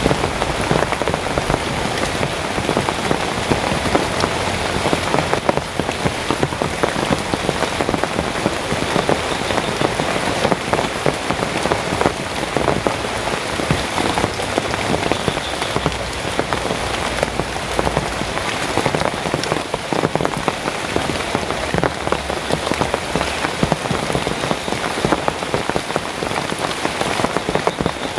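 Heavy rain falling steadily, with many separate drops ticking against a surface.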